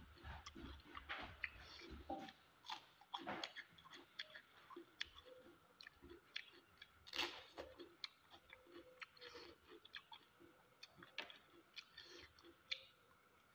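Faint close-up eating sounds: a man chewing fish curry and rice eaten by hand, with irregular small wet clicks and lip smacks, the loudest smack about seven seconds in.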